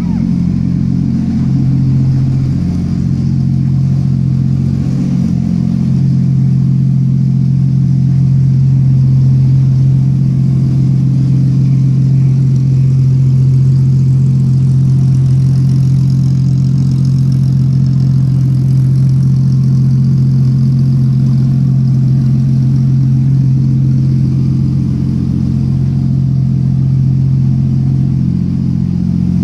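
Porsche Boxster Spec Racer's 2.5-litre flat-six engine running steadily at idle. The pitch holds level throughout.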